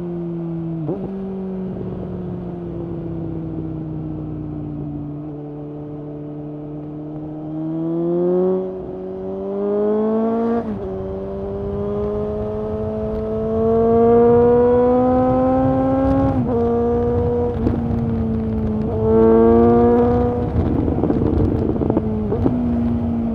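The inline-four engine of a 2019 Suzuki GSX-S750 is running through a de-catted Yoshimura SQ11 exhaust with no dB killer. The engine note falls slowly for several seconds, then climbs in pitch under acceleration. The pitch drops sharply several times as the rider changes up through the gears, with wind rumble underneath.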